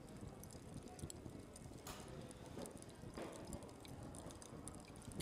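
Faint kitchen handling sounds: scattered light taps and clicks over a low rumble, with two brief soft swishes about two and three seconds in.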